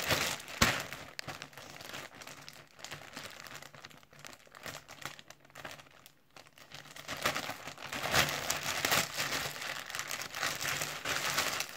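Clear plastic garment bag crinkling as it is handled and opened and a T-shirt is pulled out of it, louder over the last few seconds. A sharp knock about half a second in.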